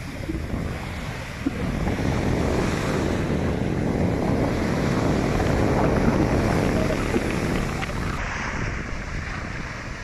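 Sea waves breaking and washing up a sandy beach, with wind buffeting the microphone.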